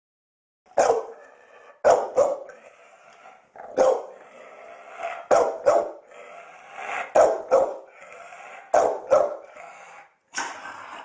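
Pitbull barking loudly: about eleven sharp barks, many in quick pairs, starting just under a second in.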